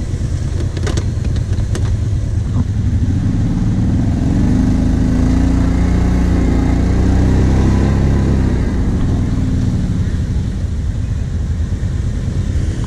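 Kawasaki Brute Force 750's V-twin engine revving up and holding high revs under load for several seconds, then easing off, as it pulls a stuck quad out of the mud on a tow rope. A couple of sharp knocks about a second in.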